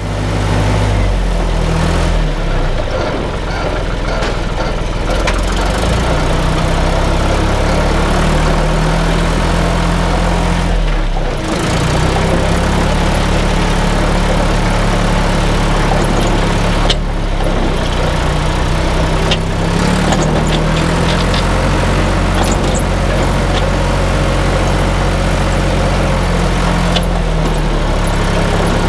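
Tractor engine running steadily under way, its low note shifting slightly, with a brief dip about eleven seconds in.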